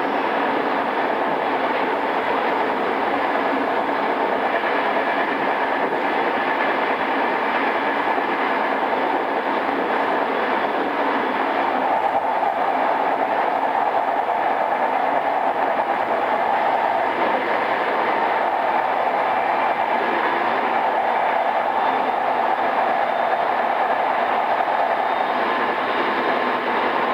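Running noise heard inside a JR East E217 series electric multiple-unit motor car, pre-renewal, on the move: a steady rumble and rail noise from the wheels and track that holds even throughout, growing a little brighter about halfway through.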